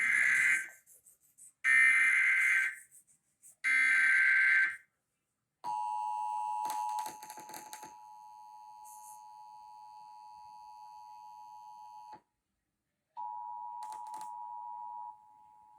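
Emergency Alert System test: three short bursts of SAME header data, the screechy digital warble, then the EAS two-tone attention signal held steady for about six and a half seconds. After a second's gap the two tones sound again briefly.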